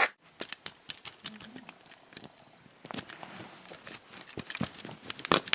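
Irregular clicks, taps and light rattles of small hard objects being handled and knocked together.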